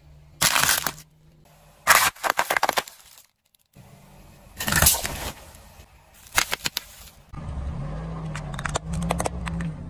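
Car tyre rolling over and crushing small plastic objects: several separate bursts of cracking and crunching plastic, with short gaps between them. Near the end a low steady car hum runs under a few more sharp cracks.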